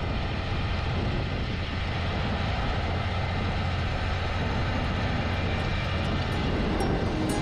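Diesel engine of a Fendt 930 tractor droning steadily under load while it pulls a Grimme potato planter through the ridges.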